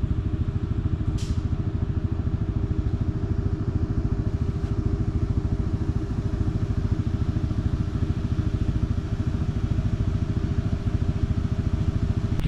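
CFMOTO ATV engine running steadily, a dense low pulsing rumble with no change in pace.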